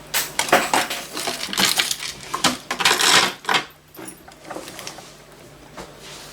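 Small metal objects clinking and rattling as they are handled and set down, a quick run of sharp clicks for about the first three and a half seconds, then only a few faint ones.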